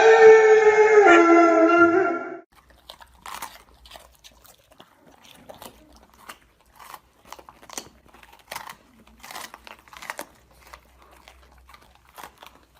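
A loud, wavering pitched wail that cuts off about two seconds in, then irregular crunching as a pet chews something crunchy, such as dry food.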